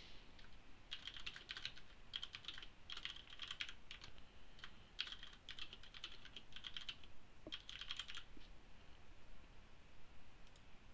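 Faint typing on a computer keyboard: quick keystrokes in several short runs with pauses between them, stopping about eight seconds in.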